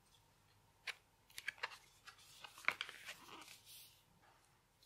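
Pages of a thick cardboard board book being turned by hand: a scatter of faint clicks and light rustles over about three seconds.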